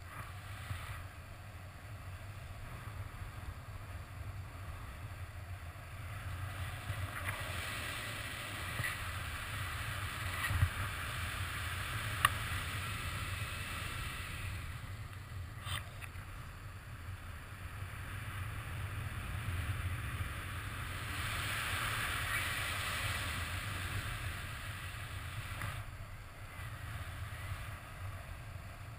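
Wind of flight buffeting a paraglider pilot's action-camera microphone: a steady low rumble with a hiss that swells and fades twice. A few sharp clicks come near the middle.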